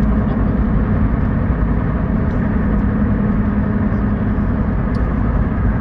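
Steady road and engine noise of a car driving, an even low rumble with no change.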